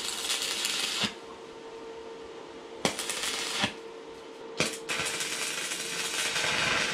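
Electric arc welding on steel square tubing: three separate runs of arc noise, short tack welds of about a second each and a longer one of about two seconds near the end.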